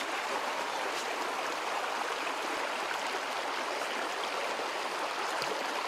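Shallow rocky stream running over stones, a steady rushing and splashing of water.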